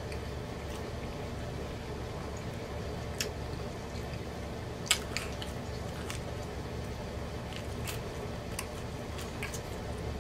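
Close-miked eating of a piece of pepperoni pizza: wet chewing and mouth clicks, with a sharp bite sound about five seconds in. A steady low hum runs underneath.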